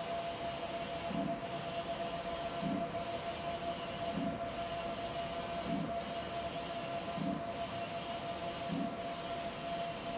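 Large-format inkjet printer running, a steady whine under a low thump about every second and a half as the print-head carriage sweeps back and forth.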